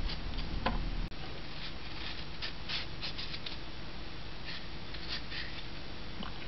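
A kitchen knife peeling the skin off a chocho (chayote), in a series of short, light scraping strokes.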